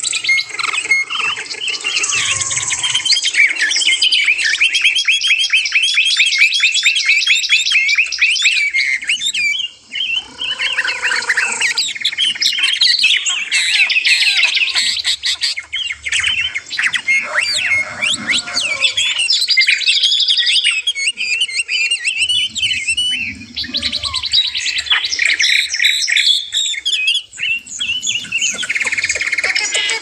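Dense chorus of many small songbirds singing and chirping at once: rapid trills and twitters overlapping, with a few lower whistled notes about a third of the way in.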